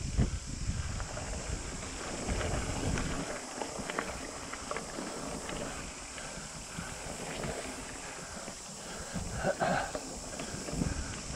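Mountain bike rolling along a dry dirt singletrack: tyre noise on the dirt with scattered knocks and rattles from the bike, and wind on the microphone. The low rumble is heavier in the first few seconds.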